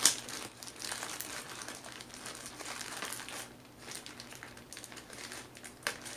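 Plastic shipping bag crinkling as it is handled and pulled at to get it open, starting with a sharp snap and ending with a short click.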